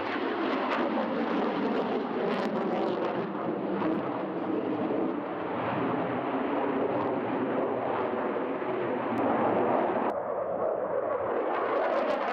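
Jet noise from a MiG-35 fighter's twin engines in flight: a steady, loud rushing sound with no distinct tone. Its highest hiss drops away abruptly about ten seconds in.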